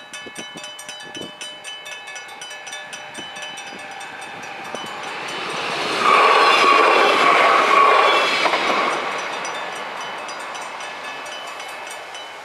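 Level-crossing flat warning bell ringing in rapid, even strikes while a train passes over the crossing. The train is loudest about six to nine seconds in, with a steady high tone, then fades.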